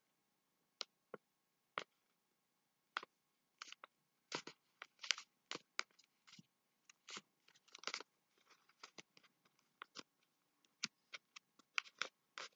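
Paper crinkling and crackling as a small sheet of yellow paper is folded and creased by hand. The crackles are short, irregular and faint, starting about a second in.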